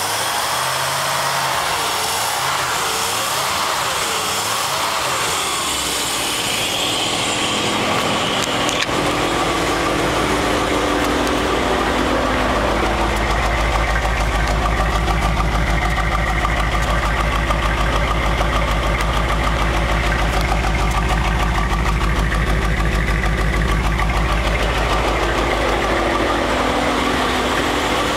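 1968 Mustang GT's 390 V8 engine: a wavering mechanical whine for the first several seconds, then about nine seconds in the engine settles into a steady idle with a deep rumble. The exhaust leak has been fixed with a new exhaust manifold.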